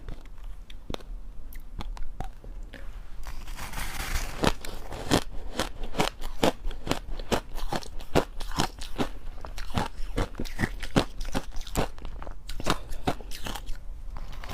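Crushed ice being bitten and chewed, a rapid run of sharp crunches and crackles.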